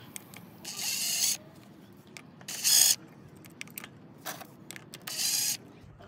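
Ratchet wrench backing out the 10 mm cap screws of a selectable locking hub's cover, its pawl clicking in four short bursts, with small metal clicks and taps between.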